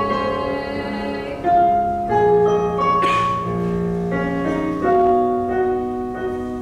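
Instrumental piano accompaniment from the show tune, playing slow held chords that change every second or two, with no singing.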